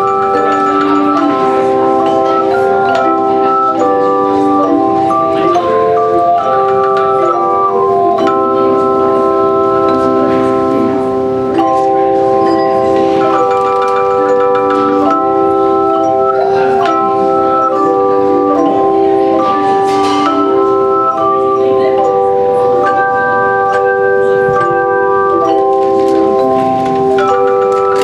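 Handchime choir playing a piece: many held, ringing metallic tones layered into chords, the notes changing every second or so.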